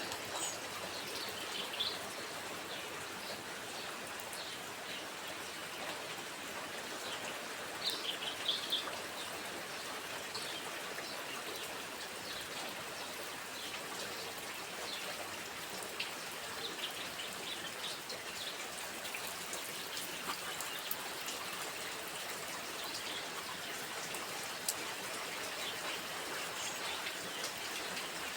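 Steady rain falling, an even hiss, with small birds chirping now and then, several calls together about eight seconds in.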